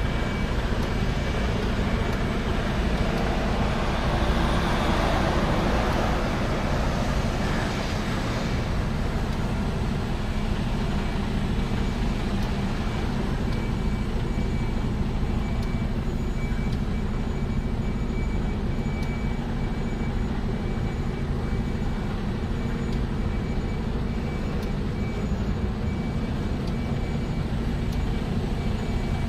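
Heavy truck on the move: a steady low engine and road drone with a faint steady high whine over it, and a louder rushing swell about four to eight seconds in.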